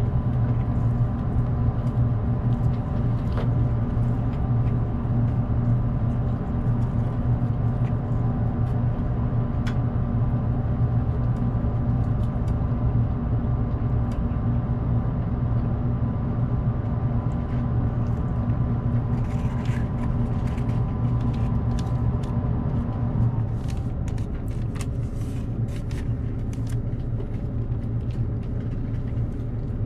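A JR Kyushu 787 series electric train stands in the station with its doors shut, and its onboard equipment hums steadily with a low drone and several held tones. A little over two-thirds of the way through, some of the higher tones cut off and the hum drops slightly, with a few faint ticks.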